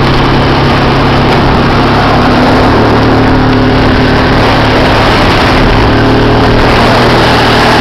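Quad (ATV) engine running at a steady pace while riding along a gravel track, with a constant rushing noise over it.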